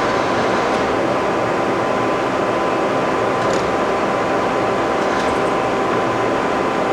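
1983 Poreba TPK80A heavy-duty engine lathe running, its power rapid traverse driving the cross slide: a steady, even mechanical hum with a thin steady whine.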